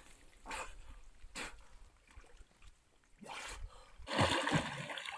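Muddy pond water splashing and sloshing in short bursts as a man moves through it, with a louder, longer stretch of splashing near the end.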